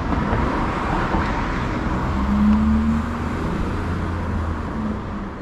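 A motor vehicle passing close by, its low engine hum swelling to its loudest about halfway through and then fading, over a steady rush of traffic noise.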